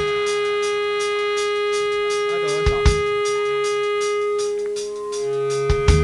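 Opening of a band's rock song: one long held note over a fast, even ticking beat. A pair of quick drum hits lands about three seconds in and again near the end.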